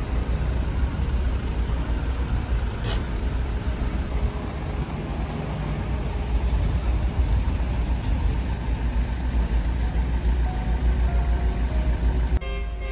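Low, steady rumble of a car idling and creeping in a traffic queue, heard from inside the cabin, with a short hiss about three seconds in.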